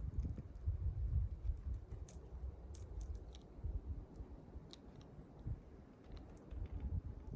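Small wild birds: scattered short, sharp ticks and chips at irregular moments over a low, uneven rumble.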